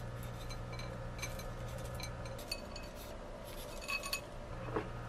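A few light clinks and taps of small hard objects being handled, scattered irregularly, over a faint steady low hum.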